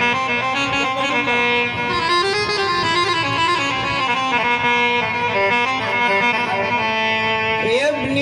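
Instrumental interlude of an Arabic mawwal: a melody line moving in quick stepped notes over held accompaniment notes. A voice comes back in singing right at the end.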